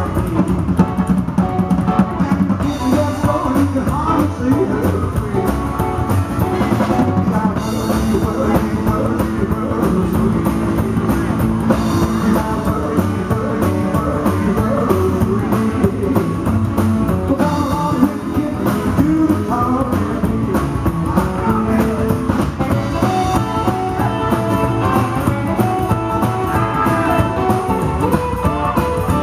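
Rockabilly band playing live: electric guitar, strummed acoustic guitar, upright double bass and drum kit, steady and loud throughout.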